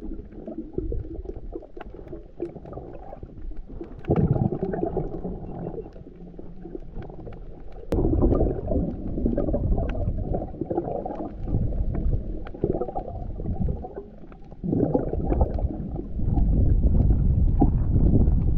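Muffled underwater sound recorded through an action camera's waterproof housing as it moves over a reef: a low rushing rumble of moving water that swells up several times, with faint scattered clicks.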